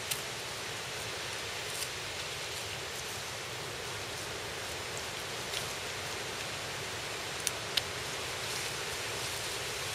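Hunting knife cutting meat from a deer carcass: a few faint sharp clicks of the blade against meat and bone, the two sharpest close together near the end, over a steady outdoor hiss.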